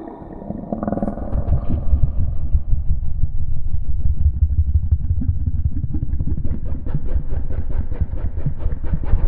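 Homemade Tyrannosaurus rex growl sound effect: a low, rattling rumble, joined about six seconds in by a faster, brighter rattle.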